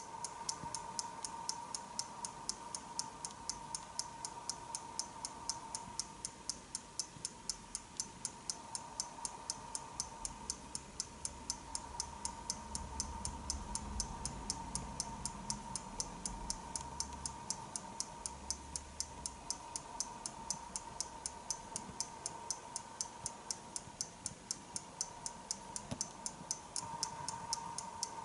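The small weight-driven pendulum clock held by a Karl Griesbaum whistler automaton ticking with fast, even ticks: the serviced clock movement running.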